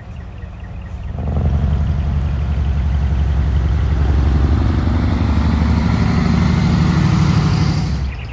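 Heavy truck's diesel engine revving hard as the truck pulls away, putting out smoke from its exhaust stack. It swells suddenly about a second in, holds loud and low, and cuts off abruptly near the end.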